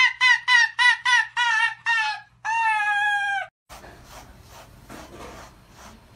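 A rapid run of high-pitched cries, about four a second, ending in one longer held cry that falls slightly. After a sudden break, faint soft strokes of a slicker brush drawn through a cat's fur.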